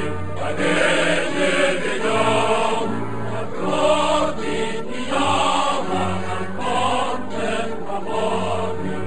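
Background choral music: a choir singing slow, held chant-like notes over a steady low note.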